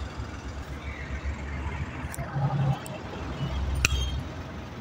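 A few sharp metal clinks from work on a semi-hermetic chiller compressor, the loudest one ringing briefly near the end. A steady low machine hum runs underneath.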